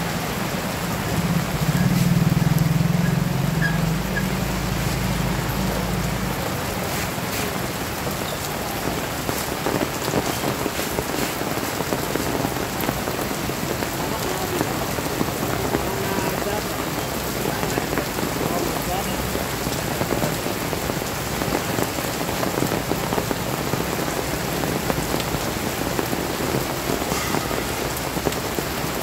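Heavy rain pouring steadily onto a paved street, with scattered drop splashes. About a second in, a motorbike's engine swells as it passes close, briefly the loudest sound, then fades under the rain.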